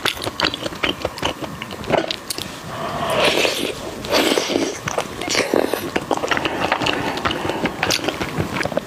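Close-miked biting and chewing of pork dipped in chili oil, with many small clicks and crackles and several louder stretches about three, four and five and a half seconds in.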